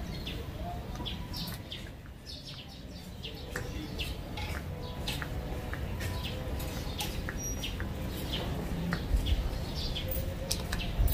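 Small birds chirping in short, irregular calls, several a second, over a steady low rumble.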